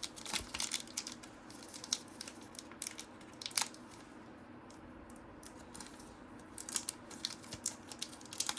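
Crinkling and crackling of a trading card pack wrapper being handled and pulled at to open it, in short clusters with a quieter stretch in the middle.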